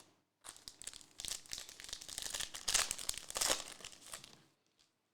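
Trading-card pack wrapper crinkling as it is handled and torn open, in a run of rustles lasting about four seconds.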